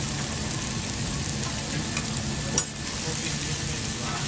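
Meat and sliced onions and vegetables frying on a hot steel flat-top griddle with a steady sizzle. A metal spatula clacks once against the griddle about two and a half seconds in, as the food starts to be turned.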